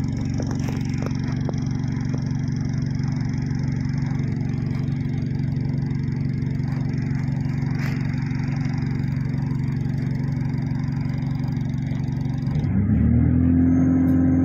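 Steady low drone of a moving bus's engine and road noise heard from inside, with a few light clicks and rattles in the first couple of seconds. About two seconds before the end it gives way suddenly to music of long held tones.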